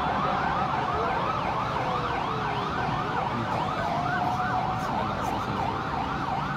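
Several emergency vehicle sirens sounding at once, heard from a distance: fast rising-and-falling yelps, about three a second, overlap with a slower wail, the emergency response to a major fire.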